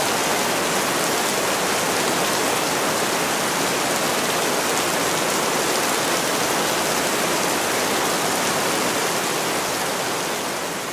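Steady, even rainfall, a dense hiss of drops with no separate patter or thunder, beginning to fade out near the end.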